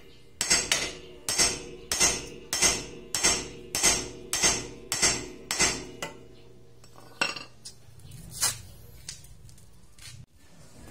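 Hammer blows on the steel front suspension of a Honda Civic EG, metal on metal with a ringing after each: about ten strikes in quick succession, roughly two a second, then two slower ones. He is pounding loose a seized ball joint without a ball joint separator.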